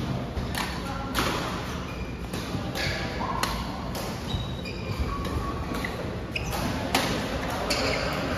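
Ball game on an indoor court: sharp hits or bounces of a ball at an uneven pace, roughly two a second, mixed with short sneaker squeaks on the floor.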